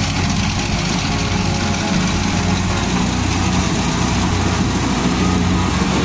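Kubota DC-68G rice combine harvester running steadily with its diesel engine at work while it cuts and threshes standing paddy: a constant low engine hum under an even mechanical rush.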